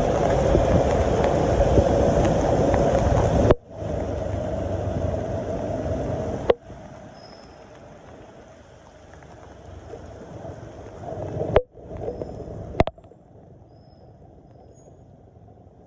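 Rainy city traffic noise heard from a moving bike: a steady rush of wind, rain and passing vehicles. The sound cuts abruptly with a click several times, and it is much quieter from about thirteen seconds in.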